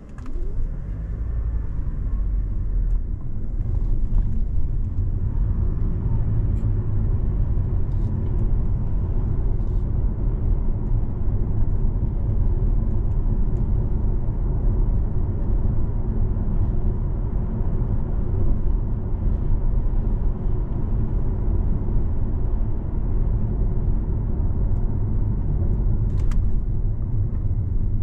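A car driving along a road: a steady low rumble of tyres and engine that builds up in the first second, then holds even.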